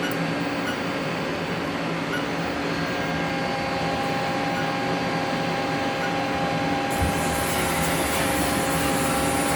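1996 Haas three-phase CNC lathe running: a steady machine hum with several level tones. A higher whine joins about three seconds in, and near seven seconds in a low thump comes with a hiss that runs on to the end.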